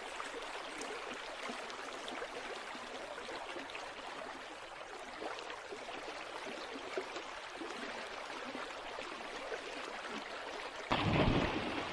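Steady rushing noise of water. Near the end it cuts suddenly to a louder, deeper rush.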